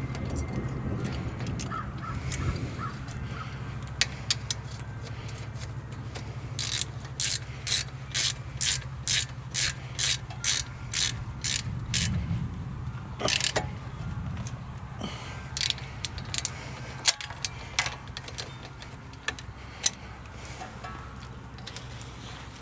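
Hand ratchet wrench clicking in a quick run of strokes, about two a second, for several seconds in the middle, as the brake caliper bolts are tightened. A steady low hum runs underneath, with scattered single tool clicks.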